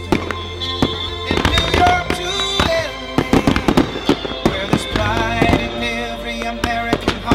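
Fireworks display: shells and effects going off as a dense run of sharp pops and bangs, heaviest from about a second in to the middle, over music with held chords.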